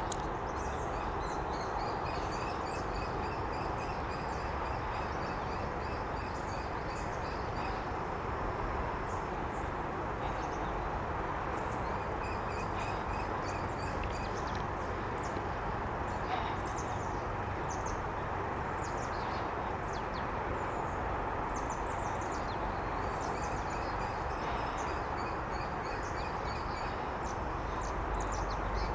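Common kestrel calling in three bouts of rapid, evenly repeated shrill notes, each bout lasting a few seconds, over a steady background rumble, with short high chirps from other birds scattered through.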